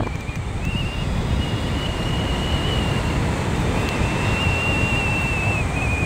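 Wind rushing over the microphone of a camera riding on a hang glider in flight: a steady, low-heavy rumble of airflow. A faint, thin high whistle holds on and off over it.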